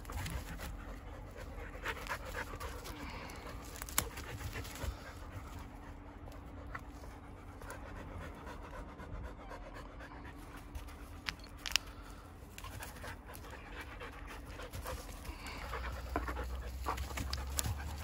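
A dog panting steadily, winded from running, with a few short sharp clicks.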